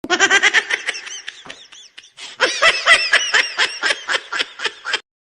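Laughter sound effect: a rapid, high-pitched giggling laugh in two bouts. The first fades out over about two seconds. The second starts about two and a half seconds in and cuts off suddenly near the end.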